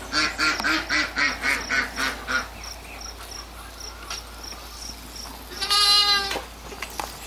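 Calf sucking milk from a bottle nipple in a steady rhythm of about three to four sucks a second, dying away after about two and a half seconds. Near the end a single short calf bleat.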